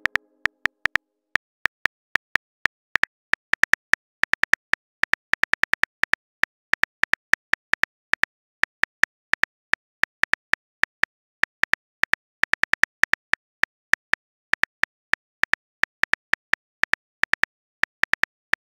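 Phone keyboard typing sound effect: short, sharp ticks with a slight high tone, one per letter, coming at an uneven typing pace, in quick runs of several a second with short gaps between.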